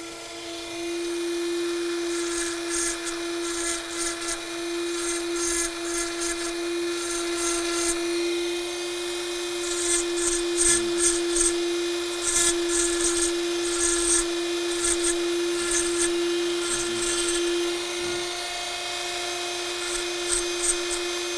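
Flexible-shaft rotary tool with a 1 mm burr running at a steady pitch while it engraves cross-hatching into wet antler, with short scratchy spells of cutting, many times over, from about two seconds in.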